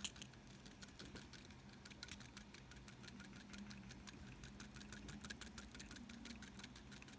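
Faint, irregular clicking and rattling from the oscillating rotor of a Seiko 7S26/4R36 automatic movement as the watch is moved: the rotor rattle that many owners blame on a loose central rotor screw.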